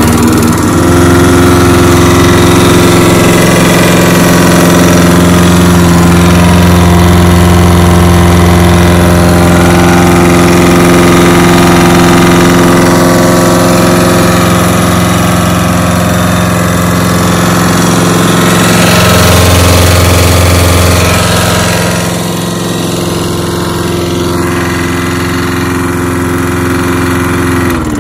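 John Deere JS20 push mower's single-cylinder four-stroke engine running steadily at a constant pitch. The owner calls the engine a little worn and says it shakes. Near the end it shuts off, the pitch sinking as it winds down.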